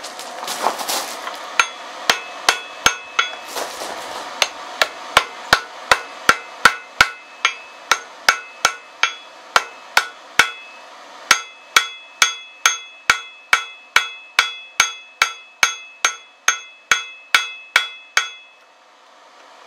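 A blacksmith's hand hammer strikes red-hot, freshly forge-welded steel from a horseshoe rasp on an anvil, and the anvil rings with each blow. The blows come in a steady rhythm of about two to three a second, with a short pause about halfway through.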